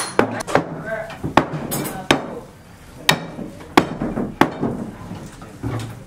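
Hand hammer blows on a building site at an uneven pace, about eight sharp strikes with a short ring after each and a pause of under a second near the middle.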